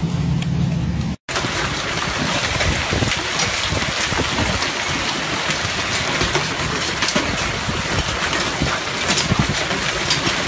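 A heavy hailstorm pelting down: a dense, steady hiss of falling ice and rain with many sharp clicks of hailstones striking. It starts abruptly about a second in, replacing a low hum.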